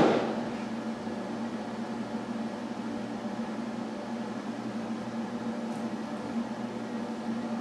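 A steady low hum, as of a fan or appliance running, with one brief loud rustling burst right at the start that fades within about half a second.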